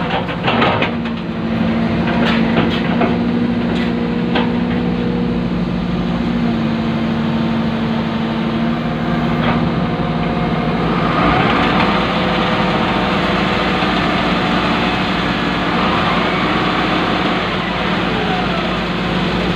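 Excavator's diesel engine running steadily, heard from inside the cab, with a few knocks in the first seconds. About ten seconds in, a louder rushing noise joins it.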